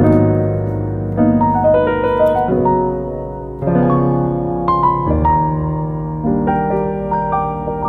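Background piano music: a melody over held chords.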